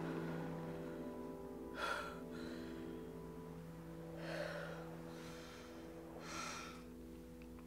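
A woman's heavy breathing: three audible breaths about two seconds apart, over soft held music tones that slowly fade.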